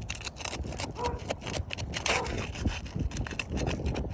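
Asphalt roof shingles being pulled loose and tearing, a quick, uneven run of short scraping and crackling strokes.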